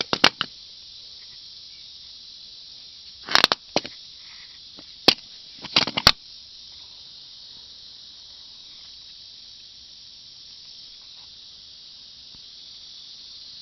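A handful of short, sharp clicks and knocks of parts and tools being handled, in small clusters: once at the start, a group a few seconds in, a single one about five seconds in and another group at about six seconds. A steady high hiss runs underneath.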